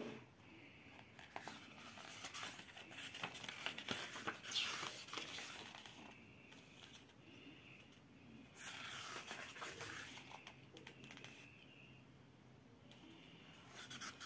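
Pages of a paperback book being handled and turned by hand, paper rustling and sliding under the fingers. There are two longer swishes, about four and a half and nine seconds in, and another near the end.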